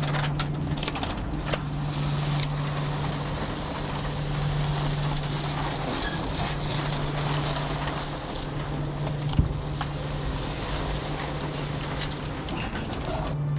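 Heavy brown paper strip rustling and crinkling as it is pulled and smoothed by hand across a metal conveyor bed, with many short crackles, over a steady low hum.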